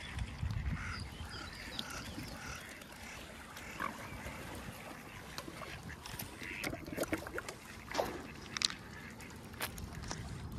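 Waterfowl calling in short, scattered calls, with a few sharp clicks between them. The calls come thicker in the second half.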